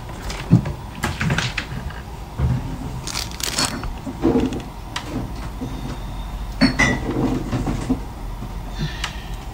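Kitchen clatter: a scattering of clinks and knocks as dishes, lids and containers are handled, over a steady low hum.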